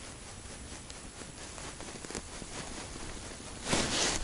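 Soft rustling and small ticks of an angler hand-lining a hooked fish up through an ice hole, with a louder burst of rustling near the end.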